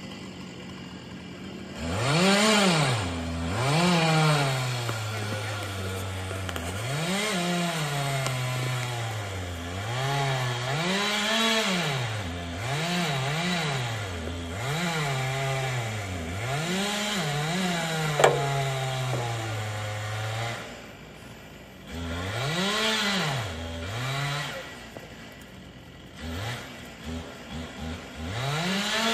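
Chainsaw felling a large oak, its two-stroke engine pitch climbing and sagging again and again as the sawyer works the cut, starting about two seconds in. A brief lull comes about three quarters of the way through, a few short throttle blips follow near the end, and there is a single sharp knock about two-thirds of the way through.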